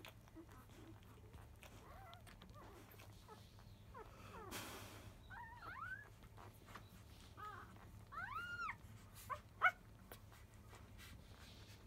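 Five-day-old Labrador retriever puppies squeaking and whimpering as they nurse: a string of short, high squeaks that rise and fall in pitch, mostly in the second half. A brief rustle comes about four seconds in, and a sharp click near the end.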